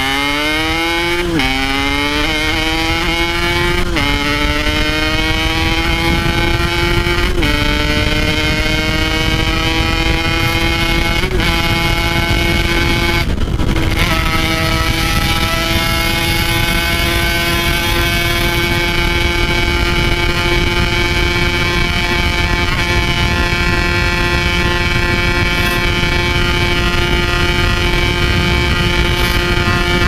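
Yamaha RX-King's single-cylinder two-stroke engine, fitted with a stock-style aftermarket Packing Power muffler, accelerating hard. Its pitch climbs and drops at each of about four upshifts in the first dozen seconds, then holds a steady high note at speed.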